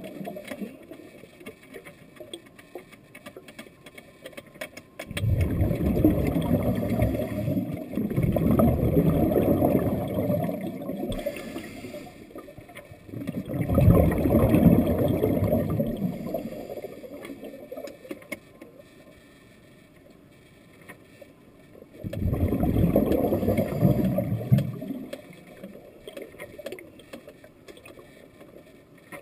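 A scuba diver's exhaled bubbles rushing out of the regulator underwater: three long bursts of low bubbling noise several seconds apart, with quieter stretches between them.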